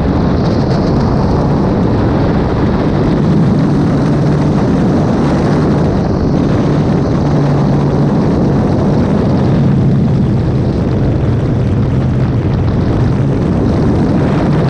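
Aircraft engine noise, loud and steady, with a low hum that comes and goes.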